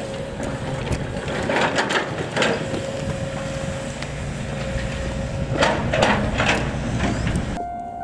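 Outdoor street noise with a low vehicle rumble and two short louder swells of noise. Right at the end, a Japanese railway level-crossing warning bell starts ringing.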